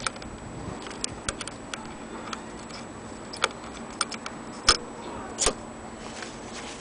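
Metal parts at the shuttle and slide plate of a Singer 12K hand-crank sewing machine being handled, giving irregular light clicks and taps, with two louder clacks about five seconds in.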